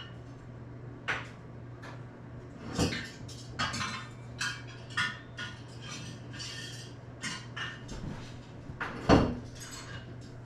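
Dishes and utensils clinking and knocking in a run of separate short clatters, with one louder knock about nine seconds in, over a faint steady low hum.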